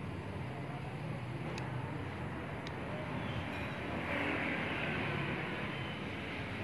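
Steady background rumble of vehicle noise, growing louder about four seconds in, with two faint ticks early on; no cat yowling stands out.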